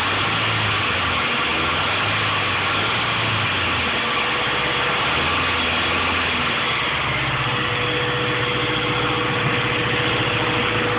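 Engine idling steadily, with a sound that the owner wonders could be rod knock. A thin steady whine joins about two-thirds of the way through.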